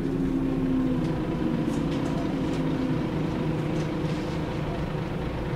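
Scania DSC9 diesel engine of a Scania L94UB bus running under way, heard from inside the passenger saloon. Its note is strongest in the first second and fades over the next two. Light clicks and rattles from the bus interior are heard throughout.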